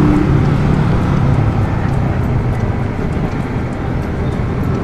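185 cc single-cylinder kapcai motorcycle engine running at low road speed, mixed with wind rush on the handlebar-mounted microphone.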